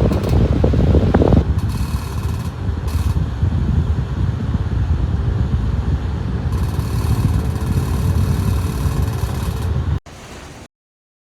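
A Simple Deluxe 16-inch pedestal fan running fast, its airflow buffeting the microphone as a loud, steady wind rumble. It cuts off abruptly about ten seconds in.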